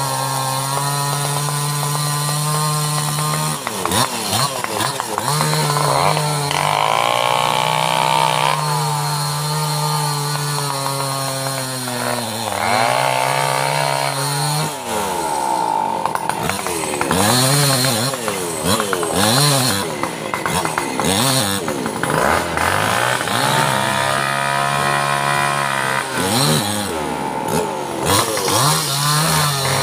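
Small two-stroke chainsaw cutting through a large felled tree trunk. The engine runs steadily for stretches, and in the second half its pitch repeatedly drops and rises as the chain works through the wood.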